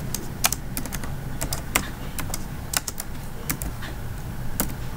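Computer keyboard being typed on slowly: single, uneven key clicks, a few a second.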